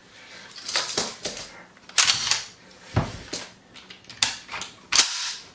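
Action of a 1945 Springfield M1 Garand rifle being worked by hand for a function check after reassembly: about five sharp metal clacks roughly a second apart as the operating rod and bolt are drawn back and let go forward, with lighter clicks between.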